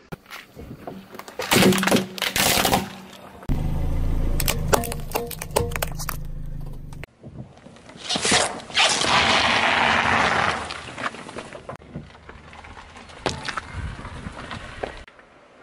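A car tyre crushing a series of objects on asphalt: sharp crackling and cracking of plastic packets bursting, a stretch of steady low car hum with clicks, then a long wet crushing noise as a half watermelon is flattened about eight seconds in, and a few sharp cracks near the end.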